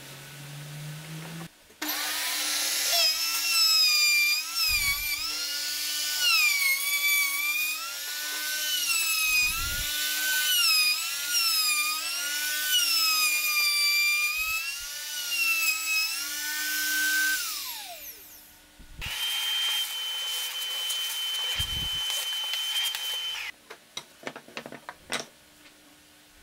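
Compact handheld trim router cutting a groove into a wooden panel. Its high motor whine sags and recovers again and again as the bit loads in the wood, then winds down about 17 seconds in. A few seconds of steady, even high whine follow, then a few light knocks.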